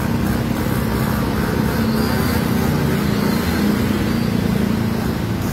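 Motorbike and car engines running in slow traffic: a steady engine hum over an even hiss.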